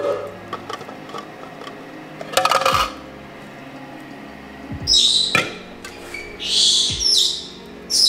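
Parrot giving several short, harsh, high-pitched squawks, one sliding down in pitch about five seconds in, with a few faint knocks in between.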